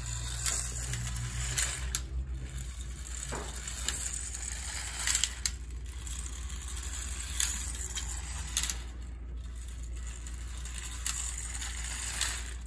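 Marx Coo Coo Car wind-up lithographed tin toy running on a hard floor: its clockwork motor whirs steadily, with a few sharp clacks of the tin car against the floor scattered through.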